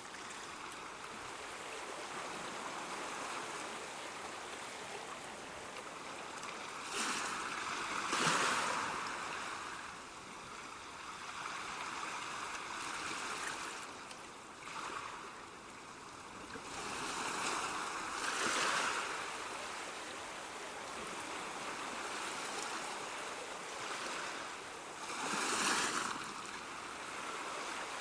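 Ocean waves washing onto a shore: a steady rush of surf with a louder wave breaking about every eight to ten seconds, three times.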